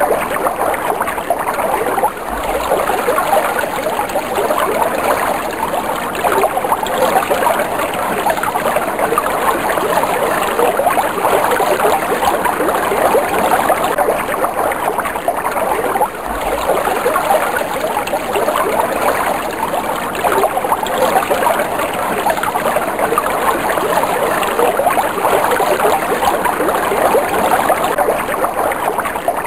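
Water flowing steadily, a continuous rushing with fine splashing detail, dipping briefly in level twice.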